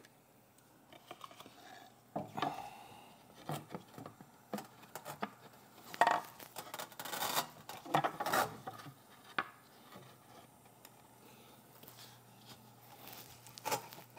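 Irregular knocks, taps and scraping of a dishwasher kick plate being handled and pressed into place along the bottom of the dishwasher, loudest in a cluster about six to eight seconds in, with one more knock near the end.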